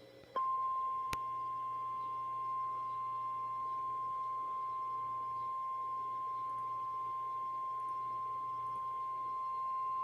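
NOAA Weather Radio warning alarm tone: a single steady 1050 Hz beep that starts about half a second in and holds for roughly ten seconds, signalling that a warning message, here a severe thunderstorm warning, is about to be read. A faint click sounds about a second in.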